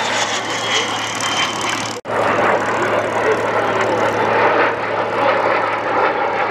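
Jet aircraft flying past: the steady roar of the Aero L-39 jet trainer with a high whine falling in pitch, cut off abruptly about two seconds in, then the continuing roar of a formation of four swept-wing jets.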